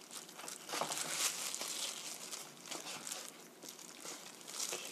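Kitchen knife slicing raw chicken into bite-size pieces on a plastic cutting board, with a few irregular soft knocks of the blade on the board.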